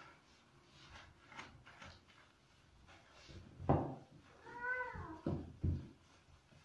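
A domestic cat being bathed meows once, a single rising-then-falling call about four and a half seconds in. Dull thumps come around it, the loudest just before the meow.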